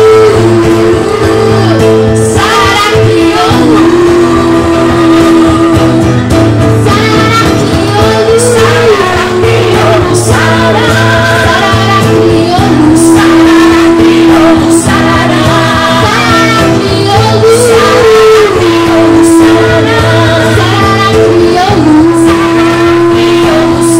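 Live music: a woman singing into a microphone, holding long, wavering notes over instrumental accompaniment.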